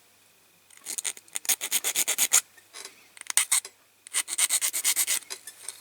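Hand file rasping across the end of a diecast toy truck's metal axle in quick back-and-forth strokes, filing off the thickened axle end so the wheels can be pulled off. The strokes come in three runs, the first and last about a second and a half long and a short one between.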